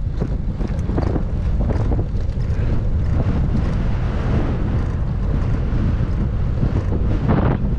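Wind buffeting the microphone of a camera on a bicycle climbing a steep road: a steady low rumble, with a broader rushing hiss swelling in the middle.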